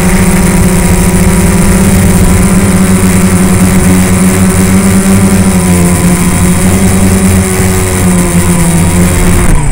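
Quadcopter's electric motors and propellers running with a loud, steady hum, heard up close from the drone's onboard camera as it descends. The hum cuts off suddenly at the very end as the motors stop.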